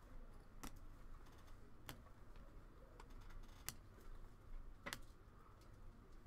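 Faint handling of trading cards: a few sharp, isolated clicks and taps as cards are flipped and set down, over quiet room tone.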